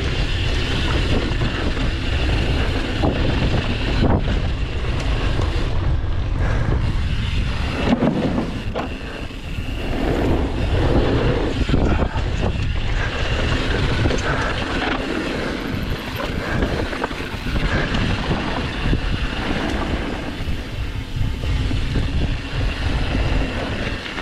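Downhill mountain bike descending a dirt trail at speed: wind buffeting the microphone over tyre noise, with frequent knocks and rattles from the bike over rough ground.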